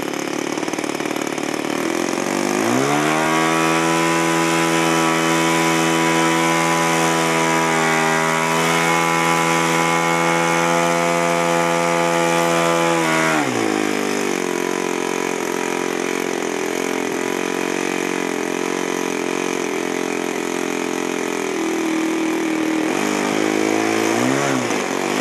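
Radio-controlled model Spitfire's engine running on the ground: idling, then revved up a few seconds in to a steady higher pitch held for about ten seconds, and dropped back to idle. Near the end come a couple of short rev blips. This is the engine run-up before the model's first take-off.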